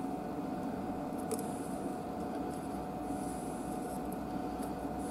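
Steady low background hum with a thin constant high tone, and a single light click about a second in, along with faint small handling noises.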